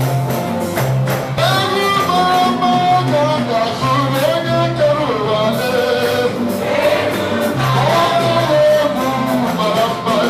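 Upbeat gospel praise music: singers over a steady bass line and a regular beat.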